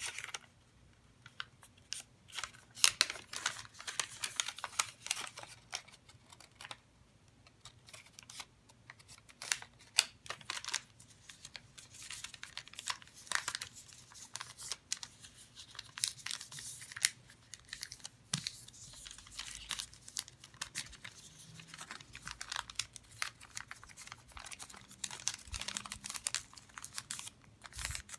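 Origami paper being folded and creased by hand: irregular rustling and crinkling with sharp little clicks as the folds are pressed flat.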